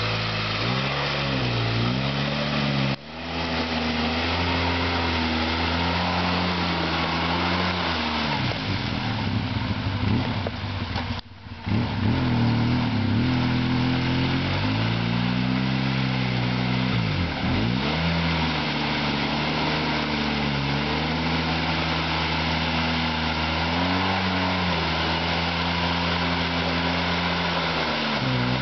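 Polaris ATV engine revving up and down over and over as the four-wheeler churns through a muddy clay hole, the pitch climbing and falling with each push of the throttle. The sound drops out briefly twice, about 3 and 11 seconds in.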